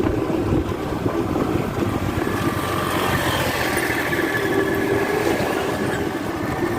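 Riding noise from a three-wheeled electric e-bike on a 60 V battery climbing a slope: steady road rumble and wind, with a faint steady tone coming in about two seconds in.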